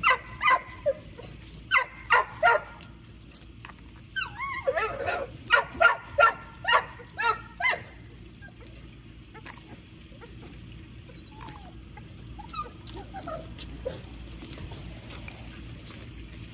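A dog giving short yips and whines in three quick runs during the first eight seconds, then only occasional faint whines.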